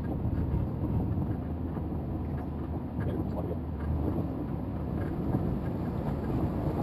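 Mitsubishi Montero SUV fording floodwater slowly: a steady low rumble of the engine and water around the vehicle, with wind buffeting the microphone.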